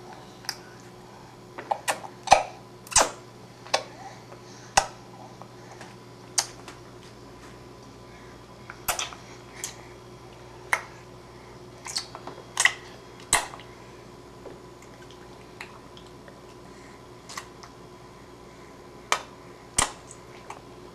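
Crunchy snack being bitten and chewed: irregular sharp crunches, some in quick pairs, over a faint steady hum.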